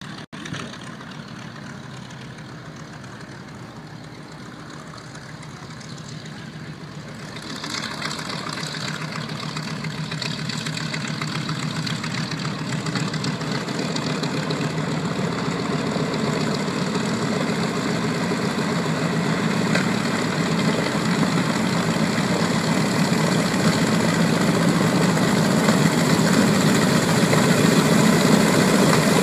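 B-25 Mitchell bomber's twin Wright R-2600 radial engines running at low taxi power as it taxis in. The sound grows steadily louder as the aircraft approaches, with a jump in loudness about seven and a half seconds in.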